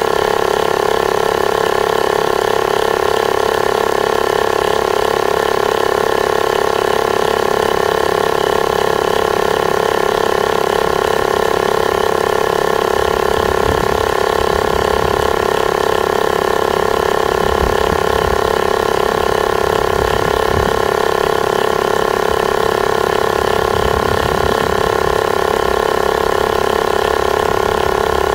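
Portable electric tyre inflator's compressor running steadily, a constant motor whine with a strong mid-pitched hum.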